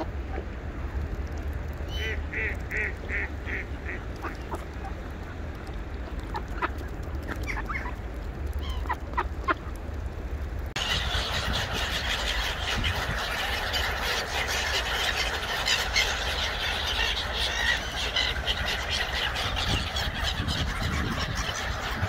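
Ducks and geese calling: a quick run of about five honks a couple of seconds in, then scattered calls. About halfway through, the sound jumps abruptly to a louder, busier chatter of many birds, over a steady low rumble.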